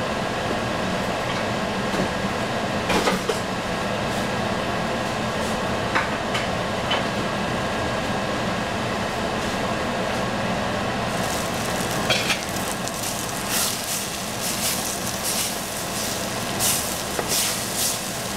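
Steady hiss of a gas burner under a covered pot of risotto cooking. About two-thirds of the way in, a crackling sizzle of the rice in the stainless pot comes through, and near the end it is stirred with a wooden spoon.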